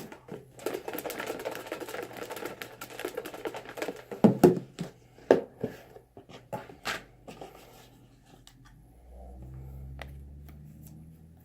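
Paper name tickets being shaken and rustled in a container for a draw, with a few sharp clicks and knocks about four to seven seconds in.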